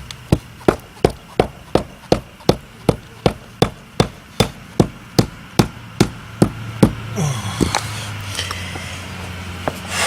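Rubber mallet pounding a paver down into its sand-cement bed: about twenty steady, evenly spaced blows, nearly three a second, that stop about seven seconds in.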